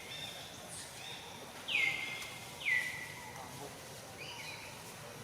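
Baby monkey calling: high-pitched cries that each drop quickly in pitch and then hold for about half a second, two loud ones about a second apart near the middle and a fainter one later.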